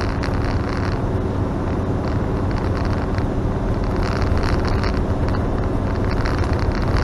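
Camper van driving along, heard from inside the cab: a steady drone of engine and tyre noise with a constant low hum.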